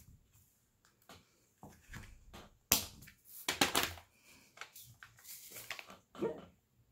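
Diamond-painting drill pen picking up small resin drills and pressing them onto the sticky canvas: a string of light clicks, taps and rustles. The loudest is a sharp click about three seconds in, followed by a short cluster of rattly clicks.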